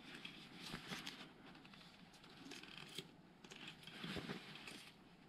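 Faint rustling and crinkling of adhesive finishing tape and overgrip being wrapped and pressed down under the fingers at the top of a tennis racket handle, with a few soft clicks.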